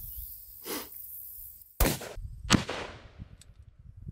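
.308 rifle fired: two sharp cracks about three-quarters of a second apart, the second the loudest and trailing off in a long echo.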